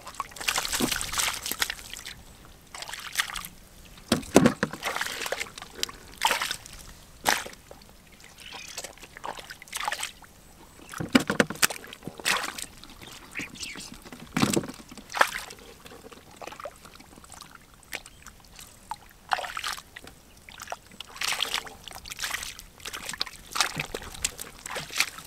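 Hands splashing and sloshing in shallow muddy water while grabbing at fish, in irregular bursts, with a few heavier splashes.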